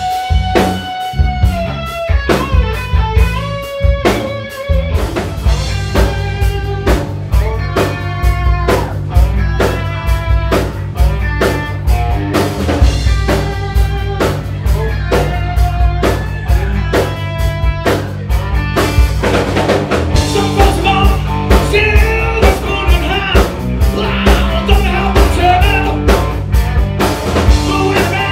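Live rock band playing: drum kit keeping a steady beat, bass guitar and electric guitar, with a lead melody of held, gliding notes. A singing voice joins about two-thirds of the way through.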